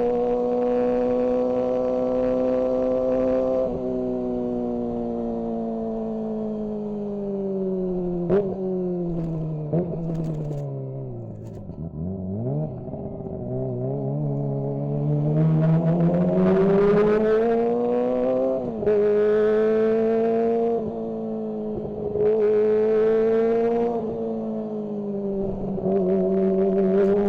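Kawasaki ZX-25R's 250 cc inline-four engine heard onboard: the note holds, then falls over several seconds as the bike slows, with a few sharp blips on the way down. About halfway through it climbs again under acceleration, the pitch dropping back a few times at the gear changes.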